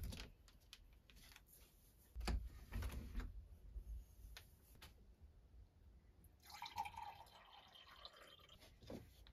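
Quiet room with someone drawing back net curtains and handling small things: scattered faint clicks and knocks, and a soft swishing rustle for about a second and a half a little past halfway.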